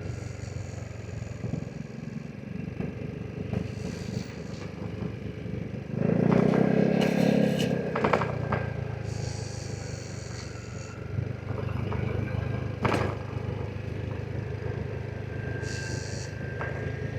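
Vespa GTS 300 SuperSport scooter's single-cylinder engine running under way, with a louder stretch of acceleration about six seconds in that lasts around two seconds. A couple of sharp knocks come later.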